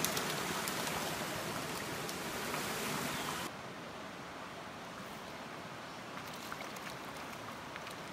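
Stream water rushing over rocks. About three and a half seconds in, it cuts abruptly to a softer, duller stream flow with a few faint ticks.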